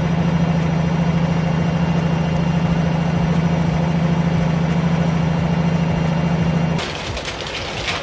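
Kitchen range hood extractor fan running steadily, a loud low hum under a whooshing rush of air. It cuts off near the end.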